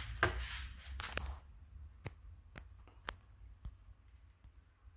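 Bubble-wrap packaging and a hard plastic brake caliper cover being handled: rustling for the first second and a half, then about five light separate clicks and taps as the cover is moved about and set down.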